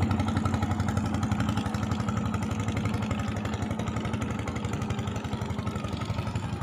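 A small engine running steadily with a rapid firing beat, slowly fading as it moves away.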